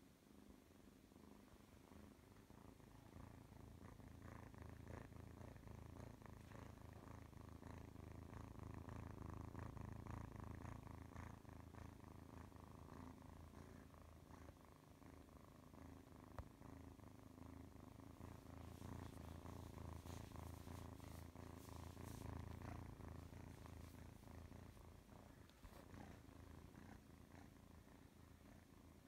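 Kitten purring close up, a faint low rumble with a fast fluttering pulse that swells and eases in loudness, with one brief click about halfway through.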